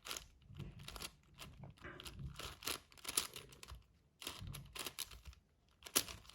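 A 6x6 Rubik's cube being turned by hand: the plastic layers click and rattle in quick, irregular turns, with a short pause about five seconds in.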